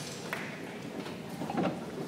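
The last scattered claps of applause dying away, with low crowd chatter.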